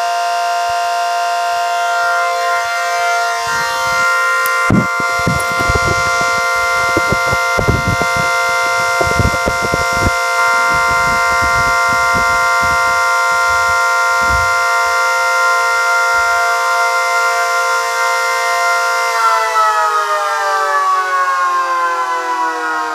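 Tri-tone siren with projectors sounding a loud, steady three-tone chord, then winding down, all its tones falling in pitch together, a few seconds before the end. Irregular low rumbles come and go through the first half.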